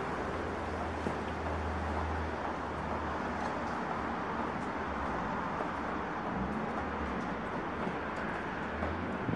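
Steady outdoor background noise with a low rumble, like distant traffic, and a few faint scrapes and ticks from a long-handled hand tool working leaf-covered ground.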